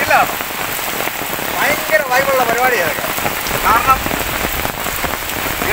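Heavy monsoon rain pouring onto floodwater, a steady hiss of drops pelting the water's surface.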